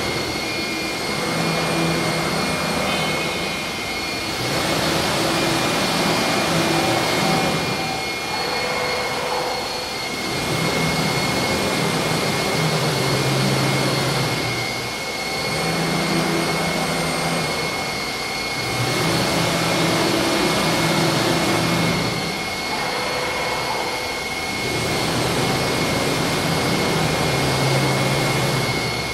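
CNC wood router running, a steady high spindle whine over a hiss of cutting noise. The level rises and falls regularly, about every four seconds.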